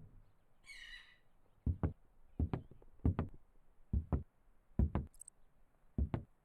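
Six pairs of dull, low knocks, about one pair a second, with a short creak about a second in.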